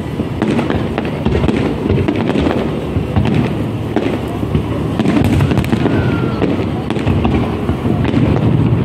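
Aerial fireworks bursting overhead: a dense, continuous run of bangs and crackles over a low rumble of booms.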